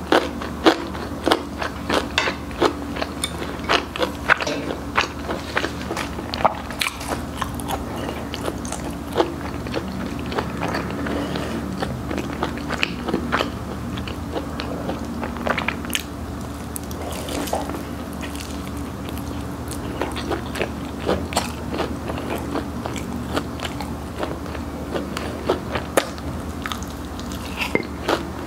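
Close-miked biting and chewing of crispy Korean fried chicken, a run of short sharp crunches between quieter chewing.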